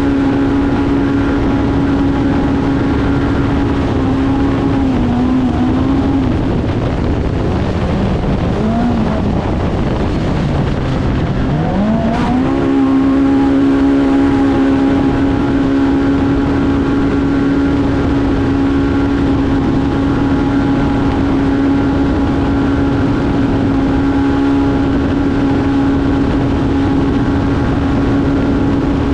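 Polaris Pro R UTV engine running at steady high revs under race load, over a rushing haze of wind and tyre noise. About ten seconds in the revs fall away briefly, then climb sharply back as it accelerates again.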